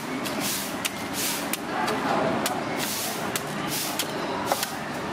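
A large knife repeatedly cutting into the husk of a young green coconut, each stroke a short sharp scrape or knock, about two to three a second. Under it runs a steady hum of street traffic.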